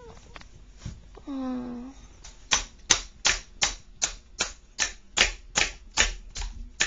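Toy hammer knocking repeatedly on a plastic pound-a-peg toy, a steady run of sharp knocks about three a second starting about two and a half seconds in. A short hum from a voice comes shortly before the knocking.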